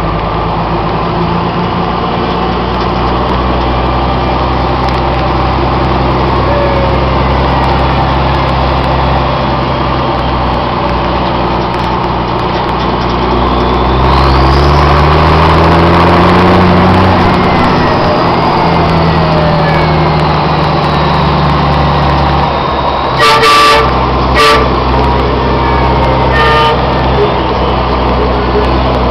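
M35 2½-ton military truck's engine running under way, heard from inside the open cab; its pitch climbs as it accelerates about halfway through, holds, then drops back. Near the end a vehicle horn toots three short times.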